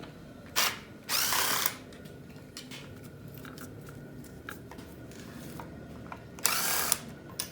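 Cordless impact gun with a 10 mm socket spinning bolts out of an LS 5.3 engine's coil pack bracket in three short bursts: a brief one, a longer one about a second in, and another near the end.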